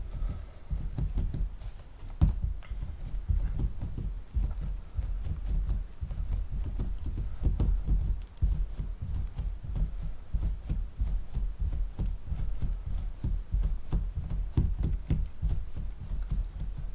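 A clay coil being rolled back and forth on a tabletop under the fingers: a continuous run of soft, irregular low thuds and rubbing.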